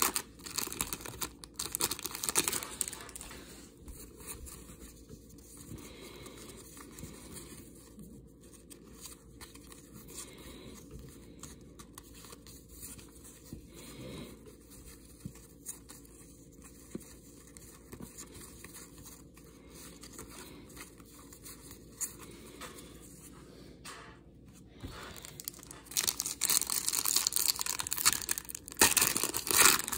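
Shiny trading-card pack wrapper crinkling and tearing as it is handled and opened, loudest in the first few seconds and again near the end; in between, quieter soft flicks and rustles of cardboard cards being leafed through by hand.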